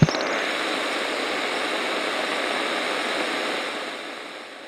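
Loud, steady hiss of a TV-static noise effect, starting with a sudden hit and fading down over the last second, with a brief burst at the very end.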